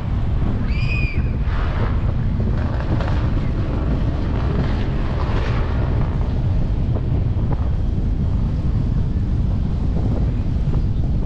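Wind buffeting the microphone while riding: a steady, loud low rumble. About a second in, a short high-pitched tone rises and falls over it.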